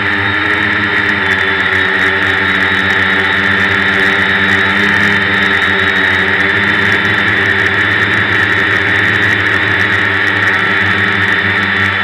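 Electric multirotor drone's motors and propellers whining steadily in flight, heard up close from on board.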